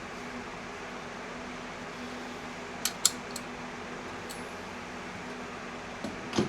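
A few sharp light clicks and clinks, two or three about halfway through and two more near the end, over a steady fan-like hum.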